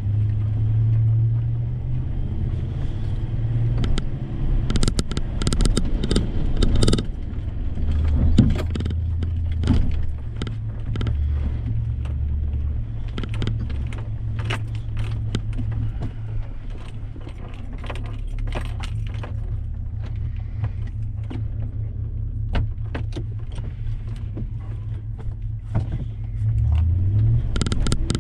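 Truck engine running at low speed while driving off-road, with frequent clicks, knocks and rattles from the vehicle bouncing over rough ground. The engine revs up briefly near the end.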